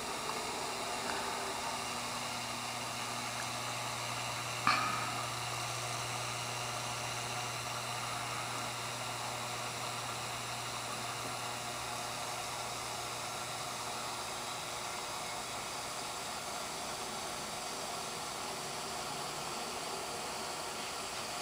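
Steady whooshing hiss with a low hum, from a small reef aquarium's pumps and filter running. The hum drops away about three-quarters of the way through, and there is one sharp click about five seconds in.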